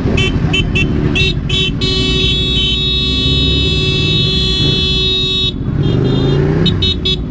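Motorcycle horn honking: several quick toots, then held for nearly four seconds, then a few more quick toots near the end. Underneath, a motorcycle engine runs, its revs rising and falling.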